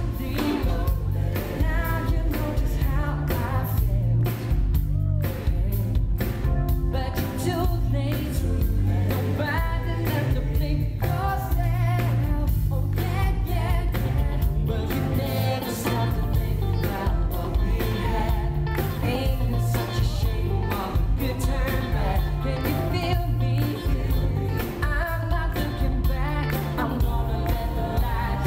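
Male vocal harmony group singing a pop song live in close harmony, backed by a band with drums and strong bass.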